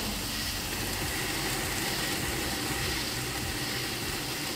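Thick rib-eye steaks sizzling on a grill grate over burning red oak coals, a steady hiss as grease drips into the fire.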